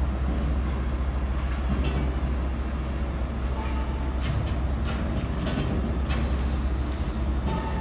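Steady low engine rumble, with a few sharp knocks about five and six seconds in.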